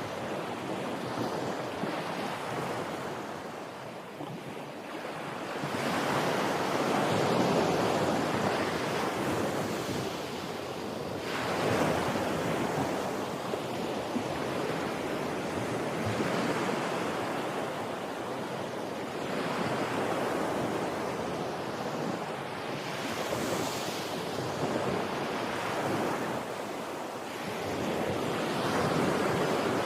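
Ocean surf: waves breaking and washing in, the rushing sound swelling and falling back every few seconds.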